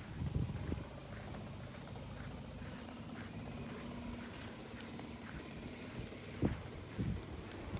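Golf cart driving across grass: a faint, steady low hum, with a few brief low thumps near the start and near the end.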